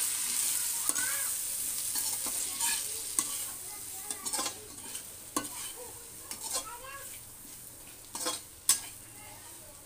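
Chopped green chillies frying in hot mustard oil in a metal kadhai, sizzling as a spatula stirs them, scraping and clicking against the pan. The sizzle slowly fades, and a sharp tap of the spatula on the pan comes near the end.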